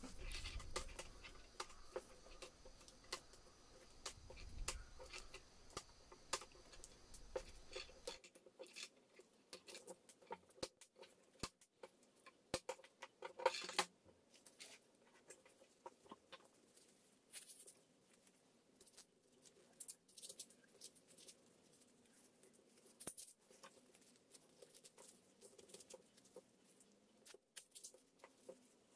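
Faint, irregular clicks and snips: scissors cutting through flower stems one at a time, and the cut flowers being handled and set down on the table.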